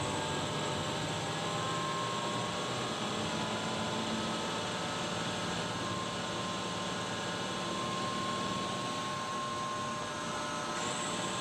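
Steady drone inside a moving bus cabin: engine and road noise with a faint, steady high-pitched whine over it.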